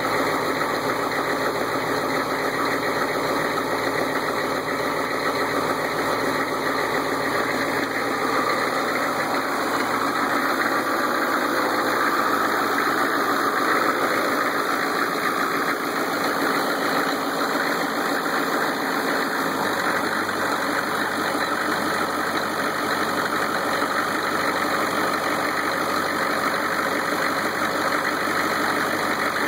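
Peninsular Marine 6.5 diesel, a marinized 6.5-litre V8 diesel, running steadily, heard close up in the open engine compartment.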